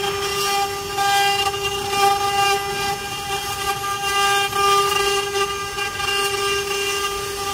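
Spindles of a multi-head CNC wood-carving router running with a steady high-pitched whine as their bits carve relief panels in wood. A hiss of cutting rises and falls over the whine.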